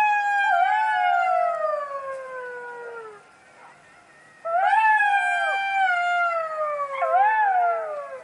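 Dog howling: two long howls, each sliding slowly down in pitch, the second with a short upward waver near its end.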